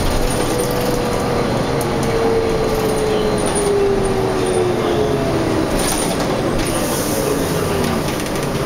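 Inside a 2005 New Flyer transit bus with a Cummins engine and ZF transmission, running over the road with steady rumble and road noise. A whine from the drivetrain falls slowly in pitch as the bus slows toward a red light, with a few short rattles near the end.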